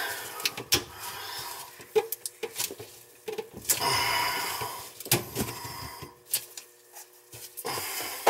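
PVC sink drain pipe and slip-joint fittings handled by gloved hands: scattered plastic knocks and clicks with rubbing as the pipe is twisted and worked loose.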